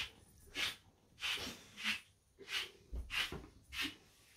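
Salt shaken from a shaker, a short hissing shake about every half second.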